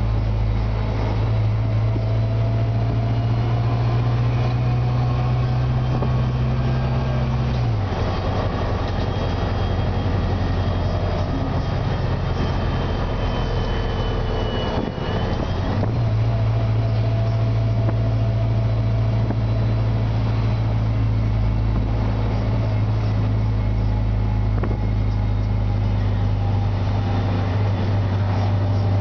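A 2003 Orion VII CNG transit bus heard from inside the passenger cabin while under way, its Detroit Diesel Series 50G natural-gas engine and Voith DIWA drivetrain giving a steady low drone. The drone drops away about eight seconds in, leaving road and cabin noise with a faint high whine. It comes back about sixteen seconds in and stays steady.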